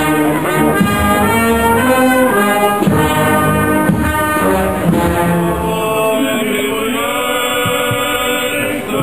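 Brass band playing a slow, solemn piece of ceremonial music; about two-thirds of the way through it settles into long held notes.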